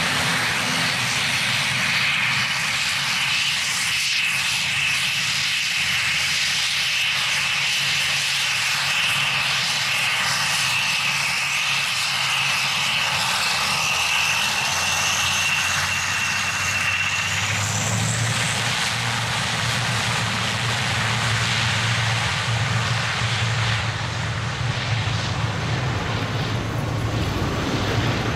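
ATR 72-600 turboprop engines (Pratt & Whitney PW127M) running at taxi power, a high steady turbine whine over propeller noise. About two-thirds of the way through, the whine drops away and a low propeller drone comes to the fore.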